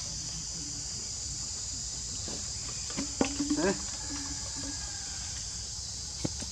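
Steady high-pitched insect chorus. About three seconds in comes a short cluster of sharp knocks with a brief low tone, the loudest moment, and there is one more sharp click near the end.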